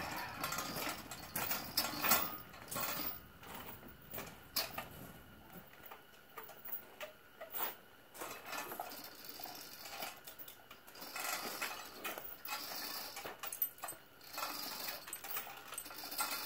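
Manual chain hoist being worked: its steel chains rattle and clink in irregular clicks and knocks.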